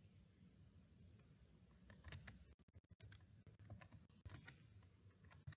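Faint computer keyboard typing and clicking, starting about two seconds in, over near-silent room tone.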